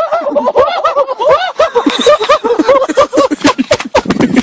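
Several people laughing hard together, a rapid run of overlapping giggles and chuckles, with a few sharp clicks mixed in.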